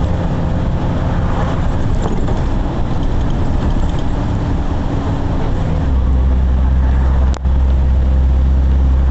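A motor engine running steadily with a loud low hum that grows deeper and stronger about six seconds in. The sound cuts out very briefly near the end.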